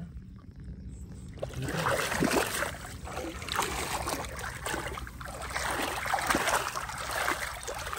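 Shallow, muddy water sloshing and splashing around a person wading and a plastic tub pushed through it, in irregular splashes that start about a second and a half in.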